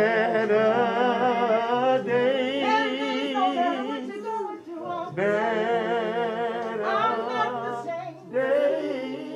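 Voices singing a cappella in harmony: long held notes with vibrato, in phrases that break off briefly about four and a half seconds in and again near the end.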